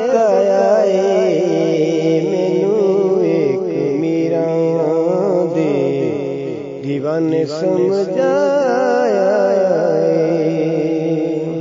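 A singer's voice carrying a wavering, heavily ornamented devotional melody over a steady held drone. The sound begins to fade near the end.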